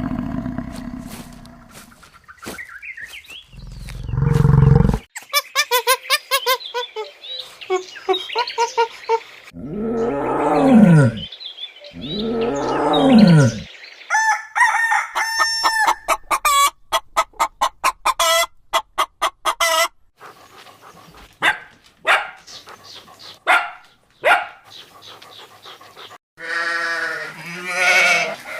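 A run of different animal calls one after another, among them two rooster crows about ten and twelve seconds in, bouts of rapid repeated notes, and a new wavering call starting near the end.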